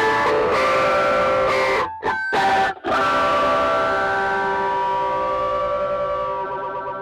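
Electric guitar played through a phaser pedal set to its first mode: a few chords broken by two short pauses about two seconds in, then a held chord left ringing and slowly fading.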